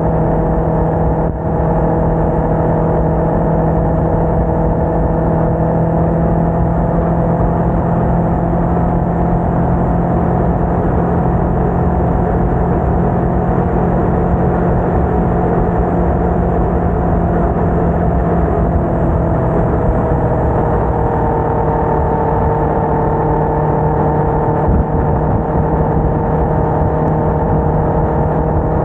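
Faired sport motorcycle's engine running at a steady cruise, with wind and road noise. Its pitch shifts a little about twenty seconds in.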